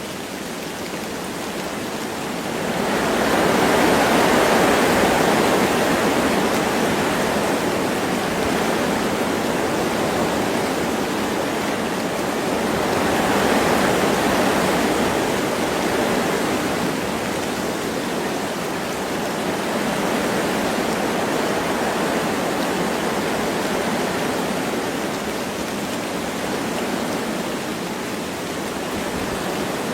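Wind gusting through forest trees over light rain, a steady rushing that swells louder a few seconds in and again around the middle.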